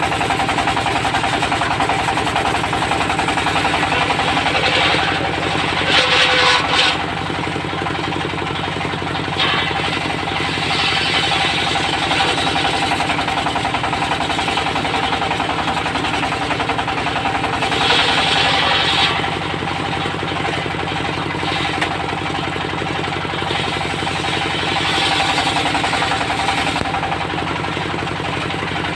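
Diesel engine running steadily to drive a mobile circular sawmill, with a knocking beat. Four times the sound swells into a louder, higher cutting noise as the saw blade runs through teak.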